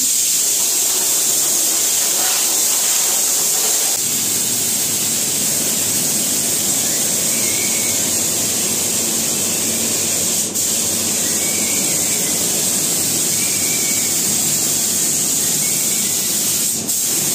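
Compressed-air spray gun with a cup beneath it, spraying the final coat of varnish onto pine panelling: a loud, steady hiss of air and atomised finish. It breaks off briefly about ten seconds in and drops away near the end as the trigger is released.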